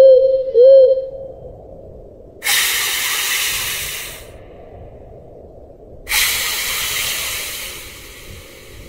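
A loud pitched tone that dips and rises in pitch twice, ending about a second in, then two hisses of about two seconds each, the second starting about three and a half seconds after the first.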